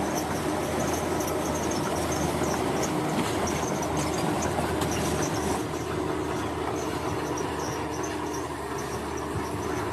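Heavy road-construction machinery running steadily, a constant mechanical rumble with a low hum, over a faint high-pitched chirping.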